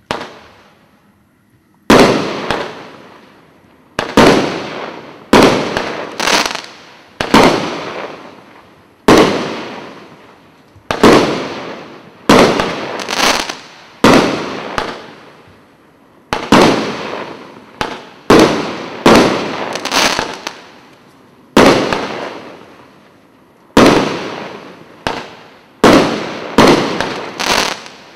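25-shot fireworks cake firing in sequence: after a quiet first two seconds, about two dozen sharp bangs of shells bursting, one every second or so and sometimes two in quick succession, each fading out over about a second.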